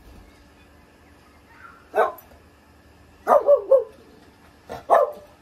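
A small spaniel-type dog barking in short, sharp barks: one bark about two seconds in, a quick run of three, then two more near the end.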